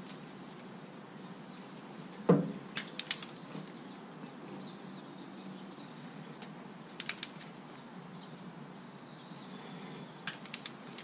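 Click-type torque wrench clicking in quick groups of two or three, a few seconds apart, as cylinder head bolts are tightened to spec, with one louder knock about two seconds in.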